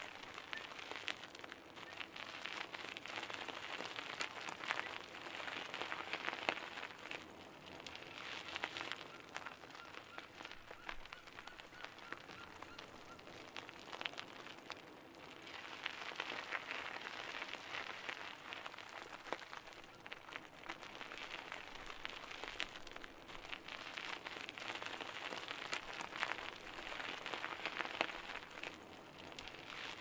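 Bicycle tyres rolling over a gravel path, a dense crackle of small stones under the wheels that swells and eases several times.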